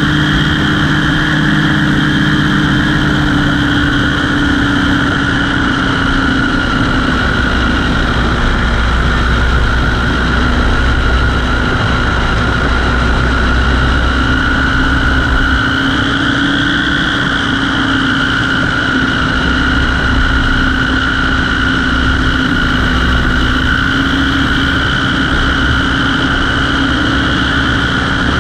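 Light aircraft engine and propeller running steadily in flight, a loud even tone whose pitch wavers slightly.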